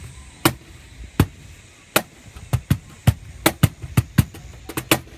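Cajon played by hand in a basic bass-and-snare groove: deep bass tones alternating with sharp, bright snare slaps. The strokes are sparse at first and pick up into a quicker, busier pattern about halfway through.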